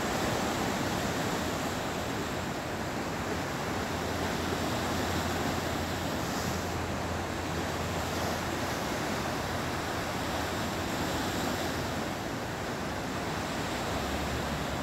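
Steady noise of ocean surf with wind on the microphone, which adds a low rumble a few seconds in and again near the end.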